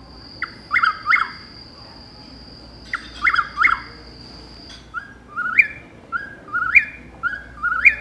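Recorded chuck-will's-widow song played through a small handheld speaker held to a microphone: two short multi-note phrases about two and a half seconds apart, then a run of short rising notes about twice a second. A thin steady high tone runs through roughly the first half.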